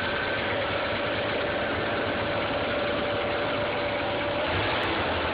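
Audi A4 1.8T AEB turbocharged four-cylinder engine idling steadily, with a thin whine running over it. It makes a strange noise that the owner cannot locate and that shows up whenever it is frosty outside.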